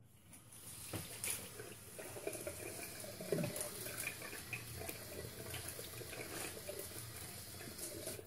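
Tap water running into a sink while the face is rinsed with cupped hands after a shave, with a few splashes; the running water stops near the end.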